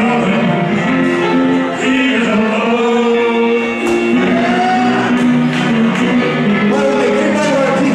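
A man singing into a microphone over instrumental backing music, holding long notes.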